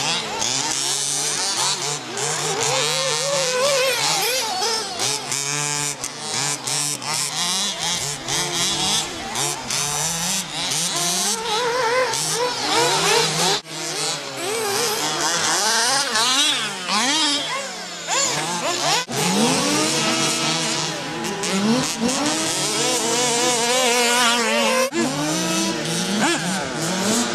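Several 1/8-scale off-road RC buggies racing, their motors revving up and down in overlapping rising and falling whines as they accelerate and brake through the corners.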